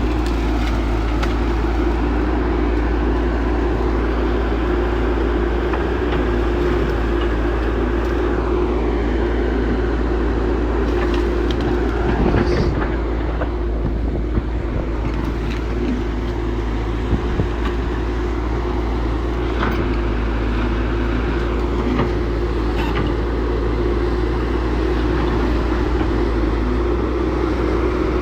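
Heavy diesel earthmoving machinery running steadily with a constant deep rumble, and a few sharp clanks partway through.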